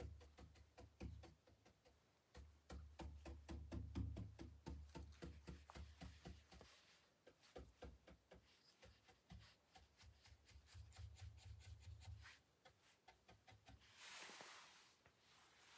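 Faint, quick dabbing and scrubbing of a round paint brush on a painted wooden chest panel while blending paint, several soft taps a second, with low dull bumps beneath them in stretches and a brief rush of noise near the end.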